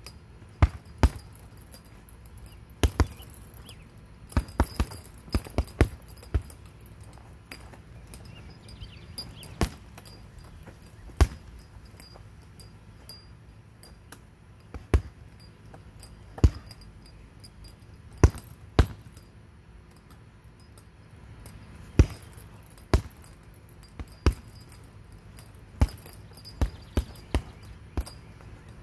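Punches landing on an Everlast heavy punching bag: dozens of sharp thuds at irregular intervals, sometimes in quick pairs or flurries. The bag's hanging chain jangles as it swings.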